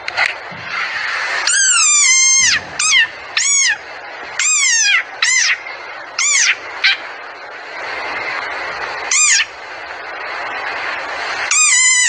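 Desert rain frog calling: about ten short, high-pitched squeaks, each rising then falling in pitch. Some come in quick runs and others singly, with a final one near the end.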